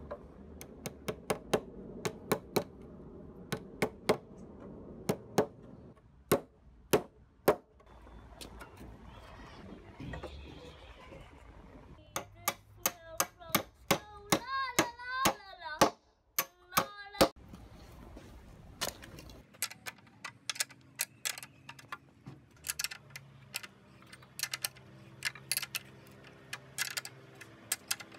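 Hammer blows on timber, driving a round toothed timber connector into a beam, as a series of sharp knocks in bursts. Midway comes a brief warbling, whistle-like sound. Toward the end, faster and lighter clicking runs over a low steady hum.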